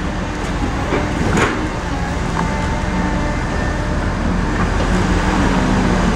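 Tigercat 234B log loader's diesel engine and hydraulics running under load as it swings a grapple full of logs. A steady rumble with two knocks in the first second and a half, growing louder toward the end.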